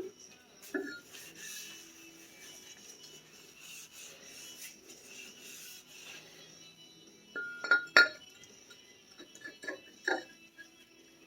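Metal clinks from parts or tools being handled, loudest in a quick cluster near the middle and again toward the end, over faint background music.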